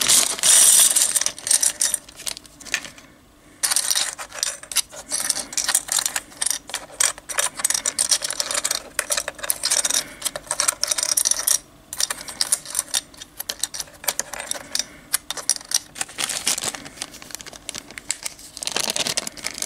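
Plastic slotted miniature bases clicking and clattering against one another and onto a cutting mat as they are tipped out of a plastic bag and spread out by hand. The bag crinkles in the first couple of seconds.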